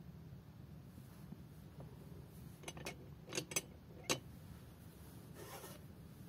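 A cast-iron Jolly mechanical bank being handled: a quick run of sharp clicks and taps, two pairs and then a single, followed about a second later by a short, soft rubbing scrape.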